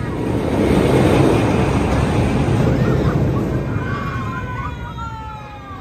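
A looping thrill ride's car rumbling around its vertical ring track, loudest about a second in. Riders scream over it, with a long, slowly falling scream near the end.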